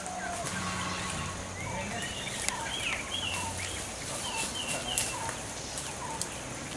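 Birds calling in the forest: many short, repeated chirps and whistled notes, with a few sharp snaps of twigs and brush underfoot.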